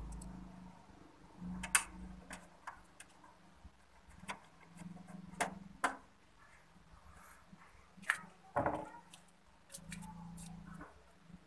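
Irregular small metallic clicks and taps of a Phillips screw being handled and driven in with a hand screwdriver at the bottom of a laser printer's power-supply bracket. The sharpest clicks come about two seconds in, around five to six seconds, and near eight seconds.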